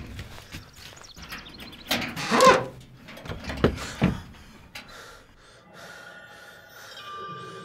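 Scuffling knocks and thumps, with a loud cry about two and a half seconds in. After that it goes quiet, and faint held tones come in near the end.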